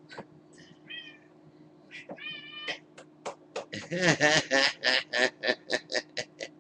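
Domestic cat meowing a couple of times, then giving a rapid run of short, chopped meows, about four a second, as a hand pats its rump.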